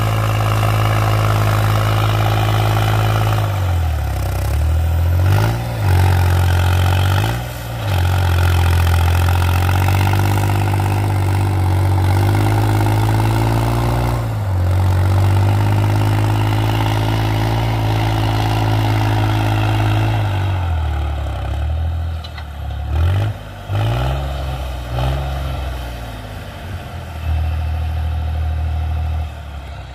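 New Holland tractor's diesel engine running hard while pulling a heavy disc harrow through ploughed soil. The engine note dips and climbs back several times, around 4, 7 and 14 seconds in and repeatedly between about 21 and 25 seconds, then settles to a lower steady note near the end.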